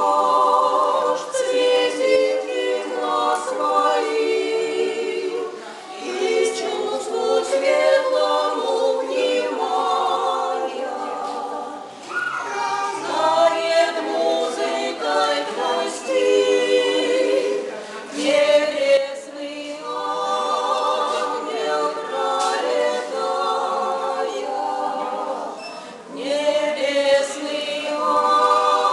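Vocal trio of three women singing a song in harmony without accompaniment, in phrases of several seconds with short breaks for breath between them.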